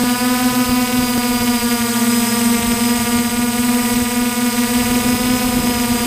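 Multirotor drone's motors and propellers humming at one steady pitch, with a steady hiss over it.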